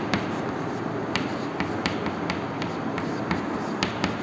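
Chalk writing on a chalkboard: a string of about ten irregular sharp taps and short scratches as letters are written, over a steady hiss.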